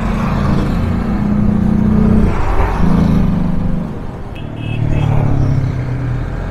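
Motorcycle engine pulling away and accelerating, its note climbing and dropping back twice as it shifts up through the gears.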